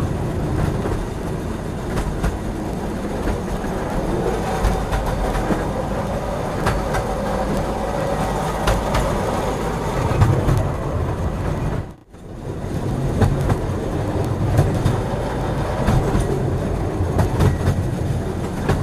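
Train rolling along the track: a steady rumble with the wheels clicking over rail joints. The sound cuts out briefly about twelve seconds in.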